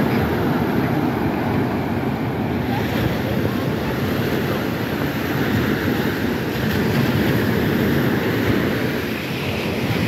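Small Black Sea waves washing onto a sandy beach in a steady surf noise, with wind buffeting the microphone.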